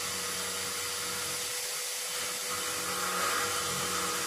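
Electric hand drill running at a steady speed, an ordinary steel bit boring out a hole in stainless steel to enlarge it. Near the end the motor slows down and its whine drops in pitch.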